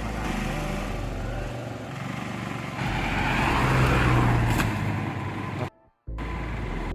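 Tata Indica petrol engine running with its new ignition coil fitted; the misfire has been cured. It swells louder for a second or two about three seconds in, and drops out briefly near the end.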